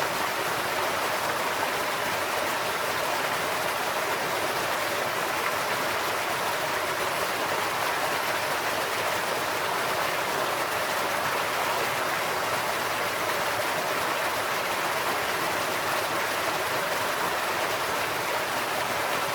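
Stream water spilling over a concrete farm road that crosses it and falling in a low cascade: a steady, even rush of water.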